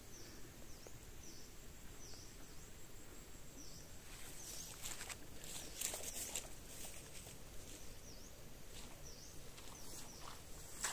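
A short, high chirp that dips and rises again, repeating about once a second over a faint steady hiss, with a cluster of rustles and clicks about four to six seconds in.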